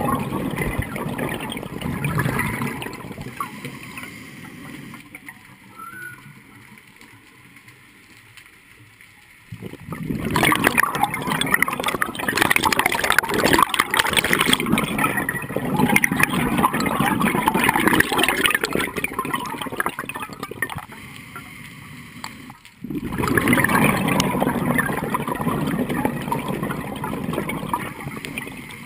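Scuba regulator exhaust bubbles gurgling underwater in long bursts. Quieter gaps come about a third of the way in and briefly again near the three-quarter mark.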